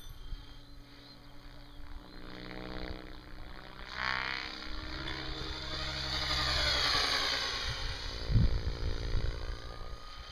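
Radio-controlled Mikado Logo 600 SE electric helicopter flying past, its rotor and motor whine swelling from about four seconds in and easing off again toward the end. A short gust of wind knocks on the microphone about eight seconds in.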